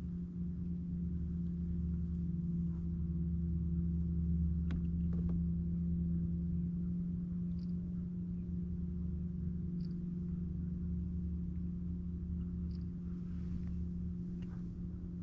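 A steady low mechanical hum with several fixed pitches, constant throughout, with a few faint short ticks over it.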